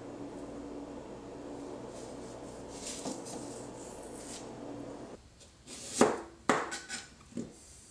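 Chef's knife chopping onion on a plastic cutting board: four or five sharp knocks in the last three seconds, the first the loudest. Before them, a steady low hum with faint handling sounds that stops about five seconds in.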